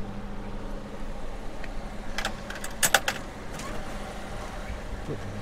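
Sharp metal clicks and a brief rattle about two to three seconds in as the cab seat's floor latch is released and the seat tipped up, over the steady idle of the Daihatsu Hijet's 660cc engine.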